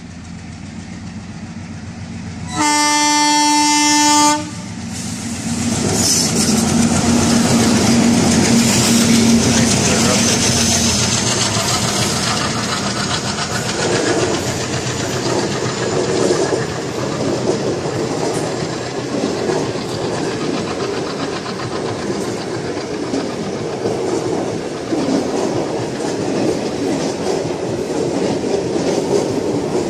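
Twin WDG3A diesel locomotives sound one horn blast of about two seconds, about three seconds in, then pass with their engines running, followed by the passenger coaches rolling by with steady wheel clatter.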